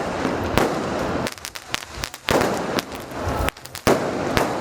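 Fireworks going off: a dense run of sharp cracks and bangs over a continuous crackle, thinning out in the middle to a few separate cracks before picking up again.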